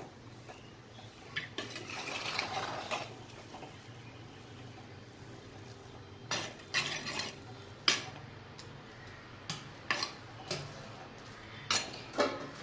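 A spoon stirring biryani rice in a clay pot, with irregular scrapes and knocks of the spoon against the pot as the ghee is mixed in.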